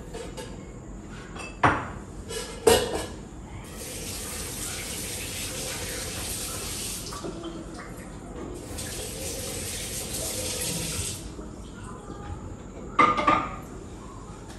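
Kitchen sink tap running in two spells of about three seconds each, with a couple of sharp knocks of crockery before it and a short clatter of dishes near the end.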